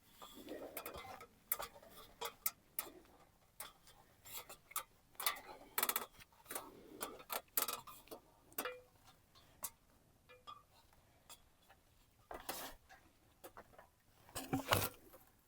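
Irregular light clicks and knocks from hand work with tools and materials, unevenly spaced, with a louder cluster near the end.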